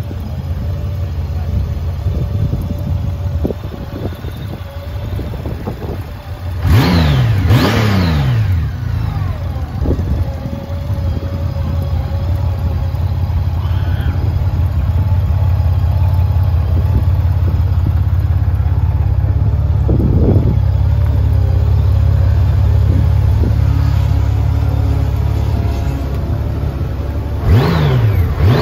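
Honda GL1800C Valkyrie's flat-six engine idling steadily. It is given two quick throttle blips about seven seconds in and two more near the end, the pitch rising and falling back each time.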